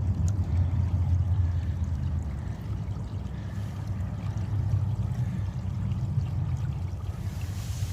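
Water running in a farm irrigation channel: a steady wash with a low rumble.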